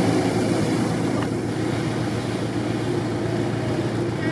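An off-road 4x4's engine running at a steady pitch, with a steady hiss over it.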